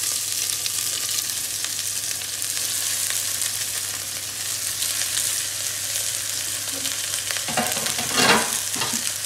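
Sliced onions sizzling in hot oil and ghee in a pressure cooker as they are pushed in from a plate: a steady hiss of frying. A brief louder clatter comes near the end.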